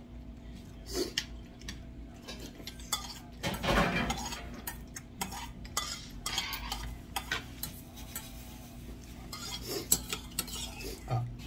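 Metal spoon scraping and clinking in a stainless steel bowl while eating, in scattered short clicks and scrapes, over a faint steady hum.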